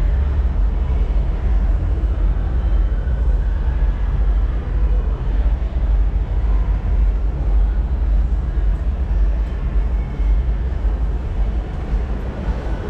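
Steady low rumble with a faint even hiss: the background noise of a large indoor mall space.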